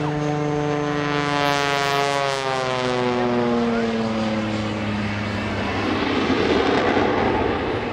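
The Screaming Sasquatch, a Taperwing Waco biplane with a propeller engine and a jet engine mounted underneath, flies past. Its engine and propeller tone drops steadily in pitch from about a second in to about five seconds in as it passes. A sharp hiss comes near the pass, then a rough rushing noise.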